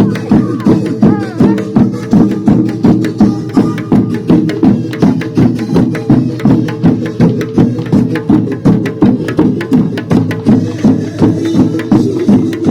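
Square-dance music with a steady, driving percussion beat.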